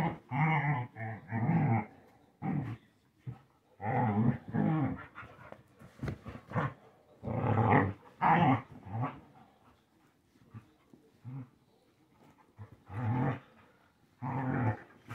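Two dogs, a Cretan hound and a black hound, play-fighting and growling in repeated short bouts with brief pauses between. The growls are rough play, not a real fight.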